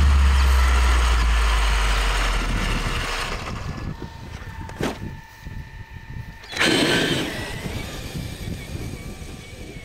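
Electric 1/5-scale Traxxas X-Maxx monster truck (8S LiPo) with a steady motor whine, then a loud burst of motor and tyres through grass about two-thirds of the way in as it pulls away. This follows a deep low tone, the tail of the background music, fading out over the first few seconds.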